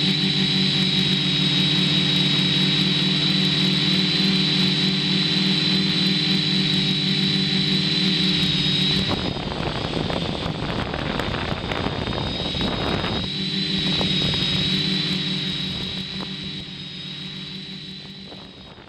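Quadcopter motors and propellers heard from a camera mounted on the drone in flight: a steady buzz with a high whine over it. About nine seconds in, the steady tones break up into rushing noise for roughly four seconds, then return before fading out near the end.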